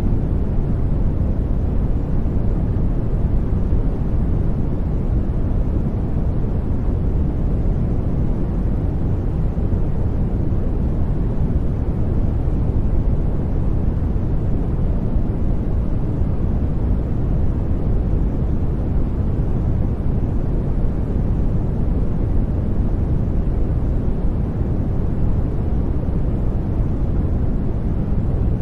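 Steady sleep-aid noise track: an even, deep rushing hiss, heaviest in the low end, with no changes or events.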